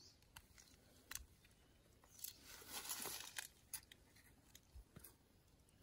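Faint rustling with a few small clicks and snaps as small wild mushrooms are plucked by hand from a rotting log among grass, with a soft swish of handling midway.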